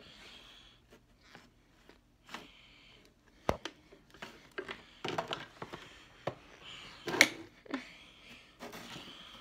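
Close handling noise: scattered clicks, knocks and rustles as things on a nightstand are moved about by hand. There is a sharp knock about three and a half seconds in and a louder one a little past seven seconds.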